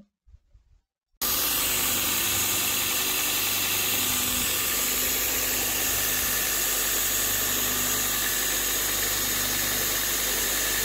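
Homemade 2x72 belt grinder running steadily with no load. The electric motor hums and the sanding belt hisses over the wheels. The sound cuts in abruptly about a second in.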